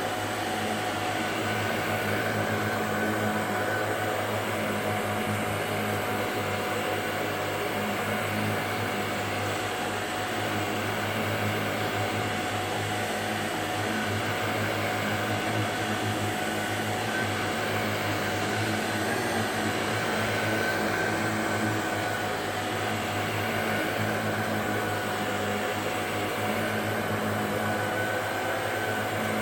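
Shark DuoClean NV801UK vacuum cleaner running steadily, a continuous motor hum with a few fixed pitches that holds level throughout.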